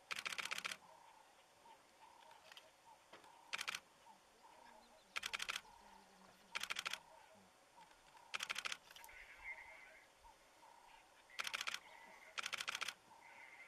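Camera shutters firing in burst mode: seven short bursts of rapid clicking, each about half a second long. Between them come faint, repeated small chirping calls.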